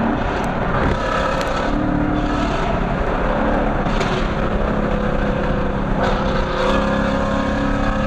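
2016 Ford Mustang GT's 5.0 L V8 running through a Corsa Xtreme exhaust and Stainless Works headers while the car drives, its note shifting in pitch a couple of times as the throttle changes.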